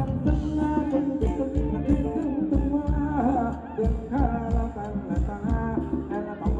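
Live band playing Thai ramwong dance music: drum kit keeping a steady beat about twice a second under electric guitar and keyboard, with a sung melody over the top.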